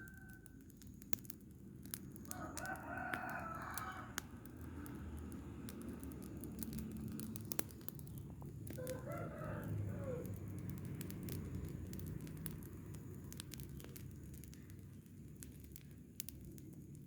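Rooster crowing twice: one crow about two seconds in and a second about nine seconds in, each lasting a second or two. Scattered sharp clicks and a low steady rumble run underneath.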